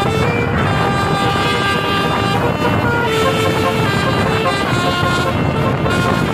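Bus telolet basuri air horn, an 18-note multi-trumpet horn, playing a melody of held notes that step from pitch to pitch about every half second, over the noise of the bus.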